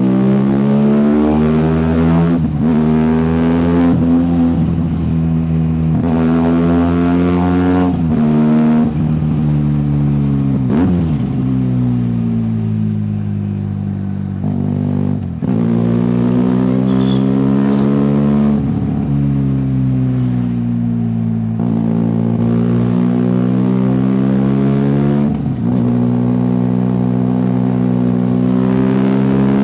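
Benelli TNT 300 motorcycle's parallel-twin engine and exhaust running under changing throttle. Its pitch climbs slowly and then drops sharply, over and over.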